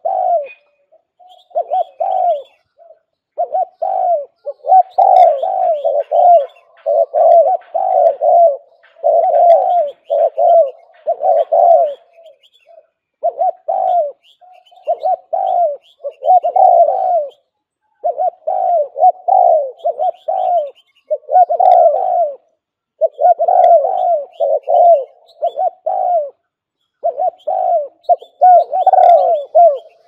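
Spotted dove cooing over and over in short phrases of several coos each, separated by brief pauses. Faint chirps of small birds sound higher up behind it.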